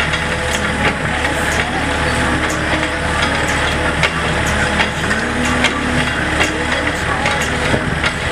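Yanmar-powered excavator's diesel engine running steadily, with scattered sharp clicks over it.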